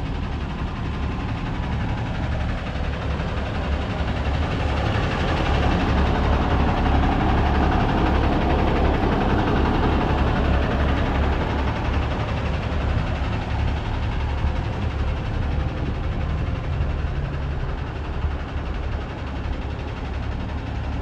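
Heavy diesel truck engine idling, a steady low rumble with a wash of noise over it that grows louder for several seconds in the middle and then eases.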